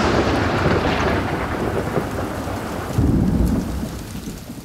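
Thunderstorm: a thunderclap rumbling away over heavy rain, a second low roll of thunder about three seconds in, and the storm fading out near the end.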